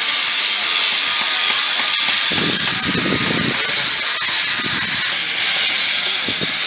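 Angle grinders carving wood, a steady loud hissing rasp, with a lower rumble swelling in for about a second near the middle.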